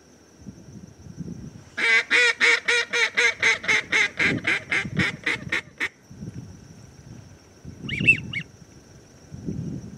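A rapid run of mallard-type quacks, about four a second for some four seconds, loud at first and tapering off at the end. A short, high two- or three-note whistle follows about eight seconds in.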